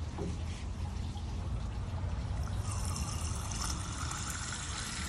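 Water from a garden hose spray nozzle, set to jet and only lightly squeezed, running in a thin stream into a glass jar to top it up. The hiss of the stream dies away about half a second in and starts again strongly about two and a half seconds in.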